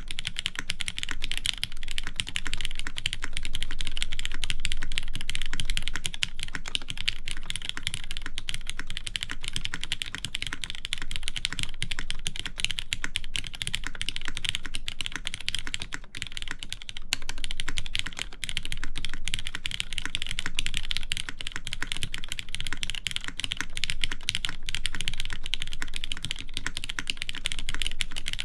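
Continuous fast typing on a custom mechanical keyboard with lubed linear Cherry MX Black switches: dense, even key clacks with no pauses.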